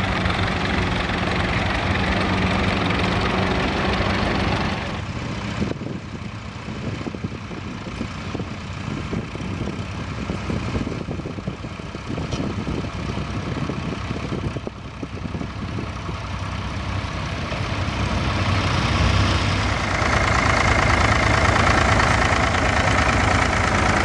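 Vintage tractor engines running steadily while pulling mounted ploughs through a field. The sound drops a little about five seconds in and grows louder near the end as a different tractor is heard.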